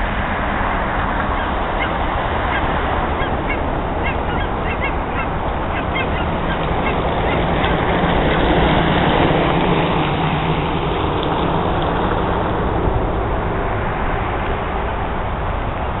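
A flock of geese flying overhead, honking: many short calls, thickest in the first half. They sound over a loud, steady background rumble that swells about halfway through.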